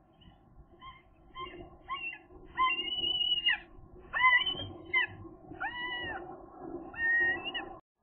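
Gull calling: a run of short calls about twice a second, then from about two and a half seconds in several long drawn-out calls that bend up and fall away. A steady low hum lies underneath.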